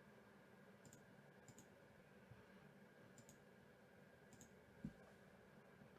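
Near silence with a few faint computer mouse clicks spaced a second or so apart, and one soft low thump about five seconds in.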